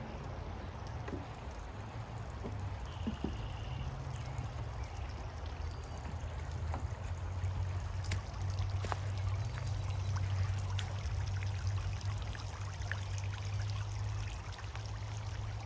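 Breeze buffeting the microphone: a steady low rumble under an even rushing noise, with a few faint ticks.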